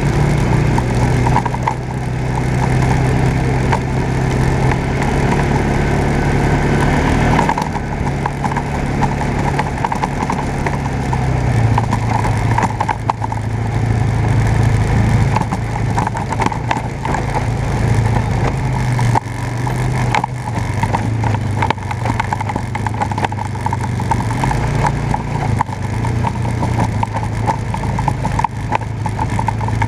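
ATV engine running while riding along a gravel trail. The engine note drops about seven seconds in and picks up again around twelve seconds.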